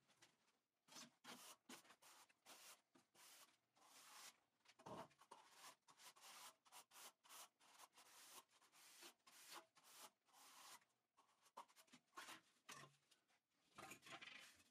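Faint, repeated scraping strokes of a trowel spreading and smoothing a sand-filled epoxy resin mortar screed.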